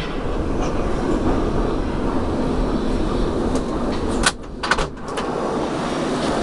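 Metro train running through a tunnel: a steady rumble of wheels on the rails. A little past four seconds in there is a cluster of sharp clicks, and the noise briefly drops.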